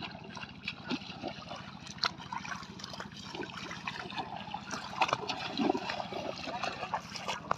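Feet and legs wading fast through shallow water, with irregular splashing and sloshing; a few louder splashes come about two and five seconds in.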